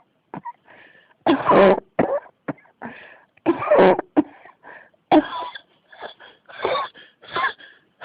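A person in a coughing fit: a run of harsh, voiced coughs, one after another. The loudest come about a second and a half and about four seconds in, with smaller coughs and quick breaths between.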